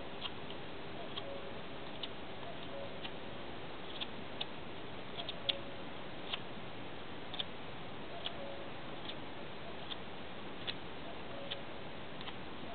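Small campfire of twigs crackling: irregular sharp pops and snaps over a steady hiss.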